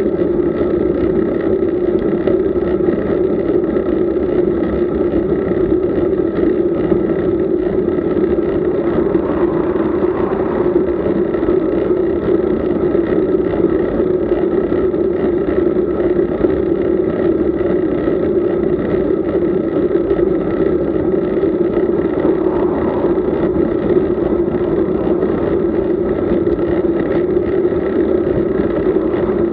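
Steady rush of wind and road noise from riding a road bike, unbroken throughout, with two slight swells about ten and twenty-two seconds in.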